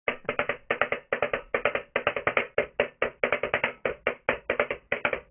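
Music: a fast run of short, clipped percussive notes, about six a second in uneven groups.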